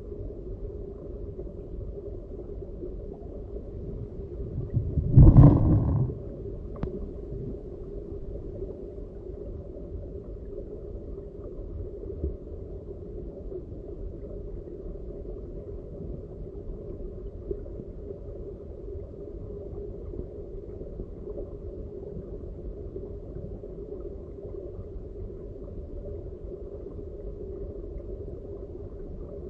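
Muffled, steady rush of stream water heard underwater, with one brief louder thump about five seconds in.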